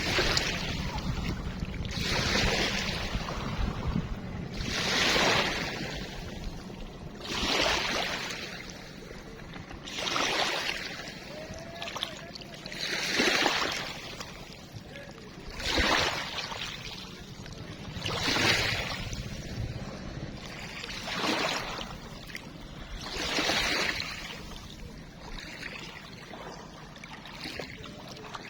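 Kocha River water lapping in small waves, a gurgling rush that swells and fades about every two and a half seconds.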